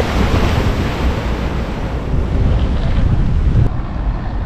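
Wind buffeting the microphone over a steady rush of sea water, with a low, uneven rumble throughout.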